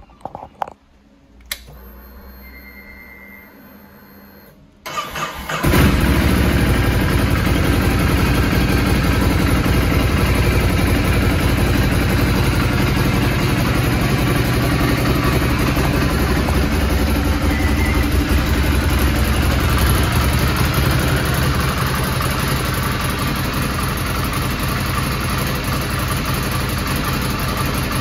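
Ducati Scrambler Classic's 803 cc air-cooled L-twin being started. After a few clicks and a faint hum, the starter cranks briefly about five seconds in, the engine catches, and it idles steadily.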